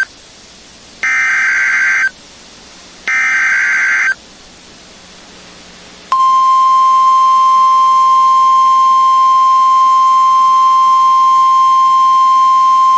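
NOAA Weather Radio Emergency Alert System activation. Two one-second bursts of screeching SAME digital header data come two seconds apart. After a pause, the steady single-pitch 1050 Hz warning alarm tone starts about six seconds in; it announces the tornado warning that follows.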